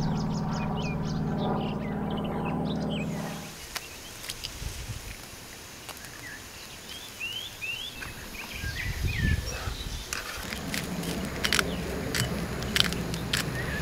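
Outdoor ambience with birds chirping now and then and a few sharp clicks. A steady low hum stops about three and a half seconds in, and a low hum comes back in the last few seconds.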